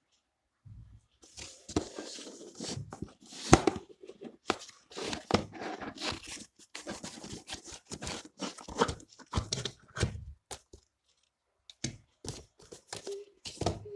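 Packaging of a boxed tractor model being torn open and handled: irregular tearing, crinkling and small knocks, pausing for about a second roughly three-quarters of the way through.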